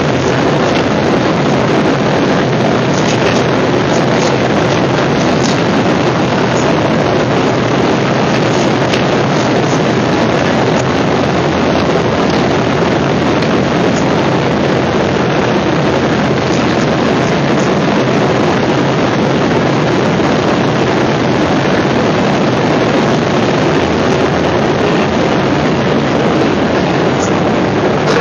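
Steady cabin noise of an airliner in flight, heard from inside the cabin: engine and airflow noise, unchanging throughout.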